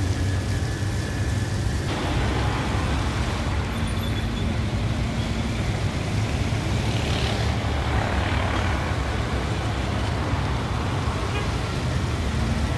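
Water fountain jets rushing and splashing down into the basin in a steady, even noise, over a constant low rumble.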